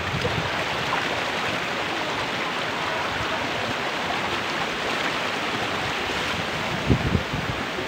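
Shallow mountain stream rushing over rock toward a waterfall's edge: a steady, even water noise, with a few short low bumps about seven seconds in.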